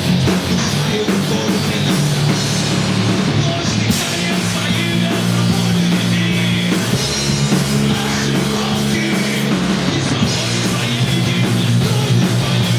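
Rock band playing loudly and steadily, with electric guitar.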